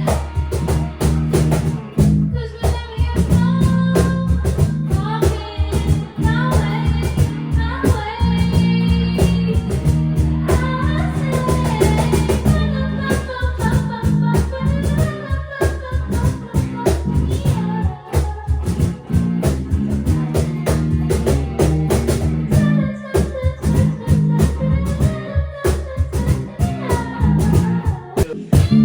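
Rock band playing live: drums, bass and electric guitar with a singer's voice over them.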